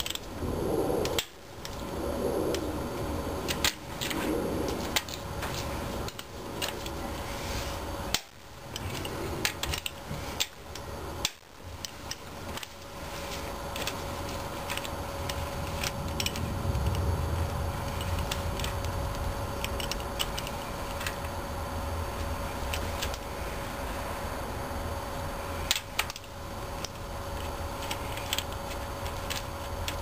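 Ratchet wrench clicking in uneven runs, with the odd clink of the steel socket, as the connecting-rod cap nuts are loosened to get at a suspected spun rod bearing.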